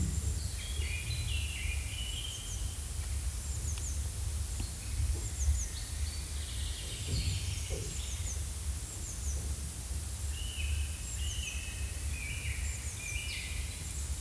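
Forest ambience: several birds calling over and over in short chirps and quick falling notes, over a steady low rumble.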